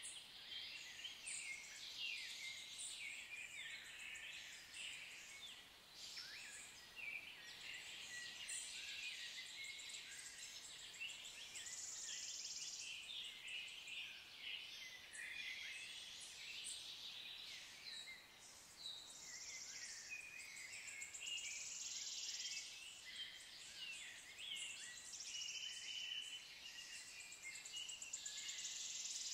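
Woodland birdsong chorus: many small birds chirping and singing over one another, with several high trills a second or two long.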